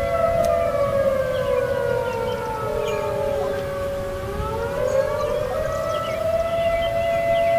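Federal 2001-130 dual-tone rotating warning siren sounding. Its pitch sags steadily over about four seconds and climbs back to its normal two tones by about six seconds in, an uneven run typical of the siren's failure.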